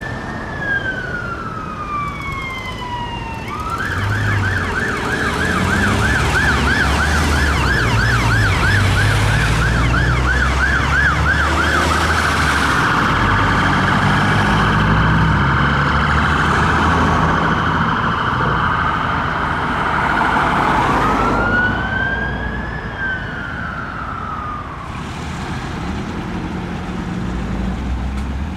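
Fire engine siren on a turntable ladder responding: a slow falling wail, then a fast yelp from about four seconds in, then a dense, harsher sound. It returns to a slow rising and falling wail after about twenty seconds. The truck's engine runs underneath, and the whole is loudest in the middle and fades as the appliance moves away.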